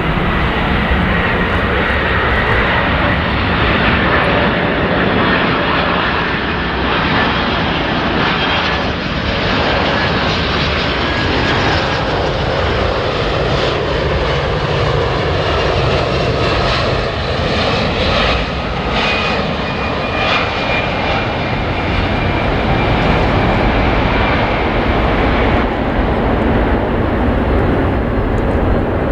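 Boeing 747-400 airliner on final approach, its four turbofan engines making a steady loud rumble with a high whine. The sound grows brighter in the middle as the jet passes closest.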